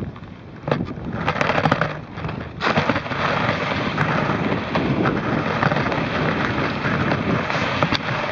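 Ski sliding over snow, a steady hissing scrape picked up right at the ski by a camera mounted on its tip, with wind on the microphone. A few knocks in the first two seconds, then the scraping grows louder and steady from about two and a half seconds in.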